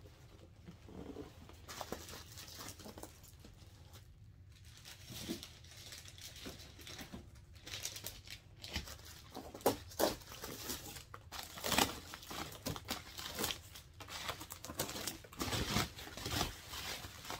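Doll packaging being unwrapped by hand: wrapping crinkling and tearing, with scattered handling clicks and knocks that grow busier in the second half.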